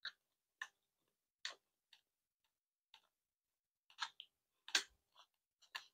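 Eating sounds: about ten faint, sharp clicks and taps at uneven intervals, from a plastic fork scooping rice in a foam takeout box and from chewing. The loudest tap comes a little before the end.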